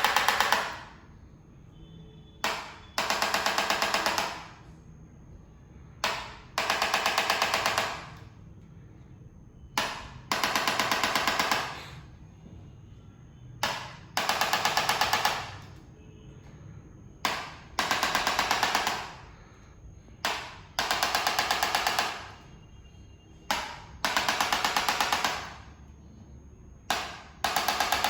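Chiropractic mechanical adjusting gun delivering thrusts to the spine: a single click, then a rapid run of about eight clicks a second for a second or so, the cycle repeating about every three and a half seconds.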